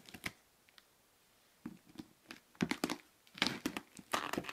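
Knife blade slitting the packing tape along a cardboard box's seam: short scraping, ripping strokes, sparse at first and coming in a quick run from about halfway in.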